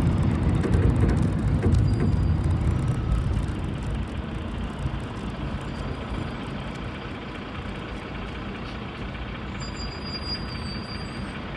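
City bus running, its engine and road rumble loud at first and dying down over the first few seconds to a steady lower drone. Near the end there is a faint high squeak.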